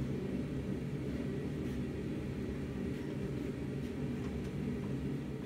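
A steady low roar, with a few faint light ticks of metal on metal as a heated knife blank is twisted in a bench vise.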